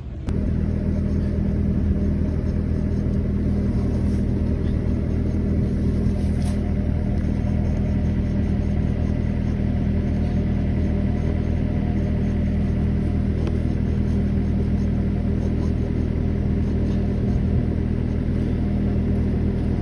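An engine idling steadily, a low, even drone that cuts in abruptly just after the start and holds unchanged.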